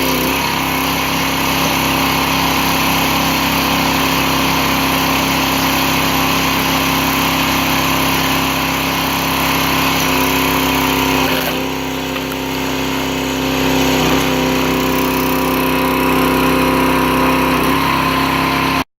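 The Loncin engine of a Dirty Hand Tools 22-ton log splitter runs steadily, its pitch and level shifting a few times and dipping briefly about twelve seconds in. It stops abruptly near the end.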